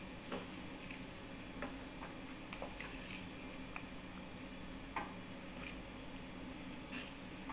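Faint wet pops and clicks from a stainless steel pot of coconut milk with salmon and okra. In the second half a wooden spoon scoops the sauce and knocks lightly against the pot, with the sharpest clicks about five and seven seconds in. A steady low hum runs underneath.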